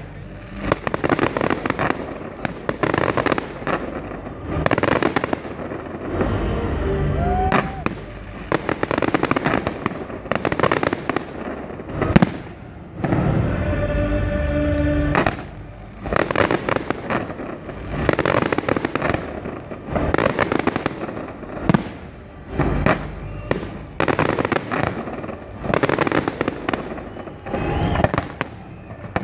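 Aerial fireworks display: shell after shell bursting, each burst a stretch of dense crackling lasting a second or two, with sharper single bangs about twelve and twenty-two seconds in.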